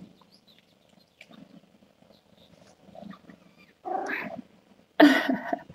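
Soft, low cat sounds from a mother cat nursing her newborn kittens, coming in faint, irregular pulses. Two louder, brief sounds follow, one about four seconds in and one near the end.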